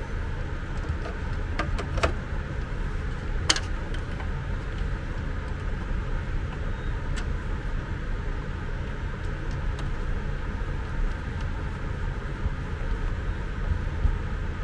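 A few short sharp clicks and taps of a screwdriver on the plastic aspirator housing and gearbox screws, over a steady low background hum.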